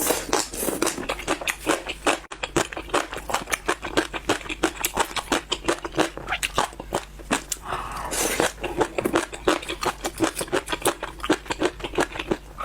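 Close-miked crunchy chewing of crisp food: rapid crisp crunches, several a second, bite after bite.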